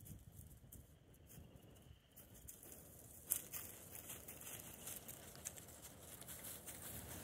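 Faint rustling and crackling, with one sharp click about three seconds in.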